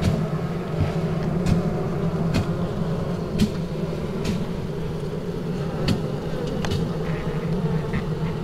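Honeybee colony in an opened Kenyan top-bar hive, buzzing as a steady low hum, with scattered sharp clicks about once a second.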